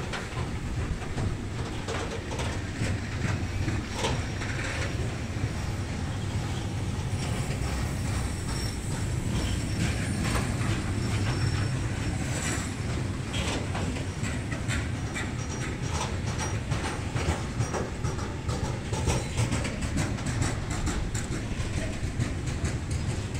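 Freight train of covered grain hopper wagons rolling past close by: a steady low rumble from the wheels, with a running clatter of sharp clicks as the wheels pass over rail joints, the clicks coming thicker near the end.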